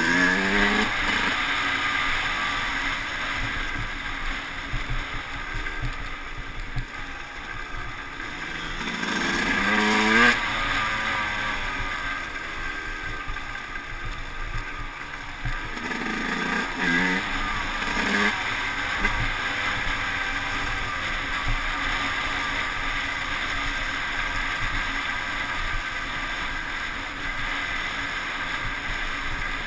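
Yamaha YZ125's 125 cc two-stroke single-cylinder engine ridden on a dirt track, its pitch rising under throttle about three times, loudest about ten seconds in, with a steady rush of wind noise.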